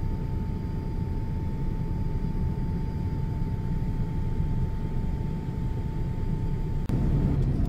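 Boeing 787-8 cabin noise in cruise: a steady low rumble of engines and airflow, with a thin steady tone over it. Near the end the tone stops, the sound drops out for an instant, and the rumble comes back a little louder.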